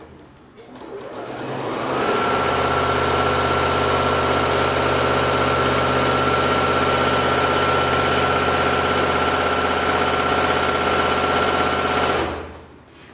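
Electric sewing machine stitching through a quilt: it speeds up over the first two seconds, runs at a steady fast speed with a thin steady whine for about ten seconds, then stops near the end.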